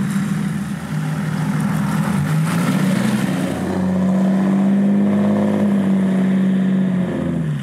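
BMW X5 (E53) 3.0d straight-six turbodiesel driving off. Its engine note rises about two seconds in, holds steady, then falls away near the end.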